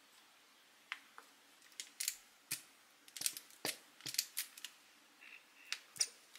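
Light, scattered clicks and taps of a wooden spoon against a frying pan and sauce bottles, and plastic bottle caps being handled, as thick red pepper paste and sauces are measured into the pan. About a dozen short ticks in all, the loudest near the end.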